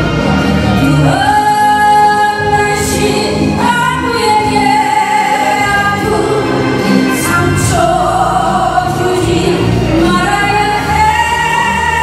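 A woman singing a popular song live into a handheld microphone over instrumental backing, holding long sustained notes.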